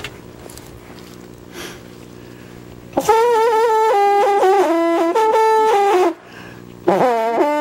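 A French hunting horn (trompe de chasse) sounding a fanfare of quick, ornamented notes, which starts suddenly about three seconds in after a faint low hum, breaks off just after six seconds, and starts a new phrase near the end.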